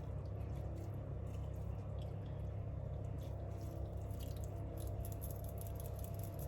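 Water being poured and dripped over layered biryani rice in the pot, heard as faint trickling and drips over a steady low hum.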